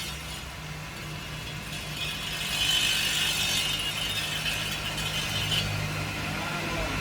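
Electric granite cutting machine with a 7.5 kW saw motor running steadily. Its harsh hiss grows louder about two and a half seconds in and eases back after about five and a half seconds.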